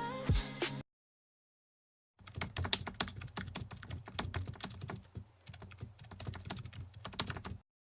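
Music cuts off, then after about a second of silence comes a run of rapid, irregular clicks, like typing on a keyboard, lasting about five seconds and stopping abruptly.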